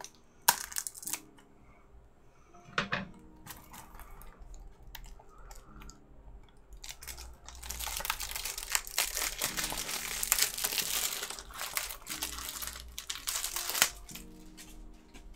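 Plastic shrink-wrap being torn and peeled off a Blu-ray case, crinkling densely from about seven seconds in for some seven seconds, after a few sharp clicks near the start.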